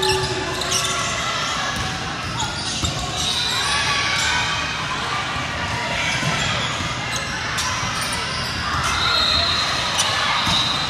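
Volleyball play in a gymnasium: the ball being hit and bouncing on the hardwood, sneakers squeaking on the court, and players' and spectators' voices, all echoing in the hall.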